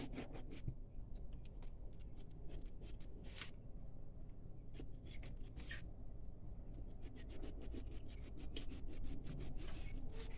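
Scratchy rubbing and rustling of a paper towel against a hedgehog fish's (porcupinefish's) spiny skin as the skin is worked loose and peeled on a cutting board. It comes as irregular quick scrapes, busier in the last few seconds.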